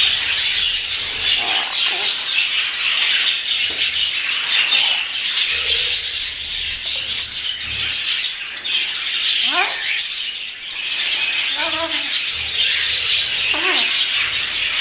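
Blue-fronted Amazon parrots calling, with several rising whistled calls in the second half over a steady high chatter of many birds.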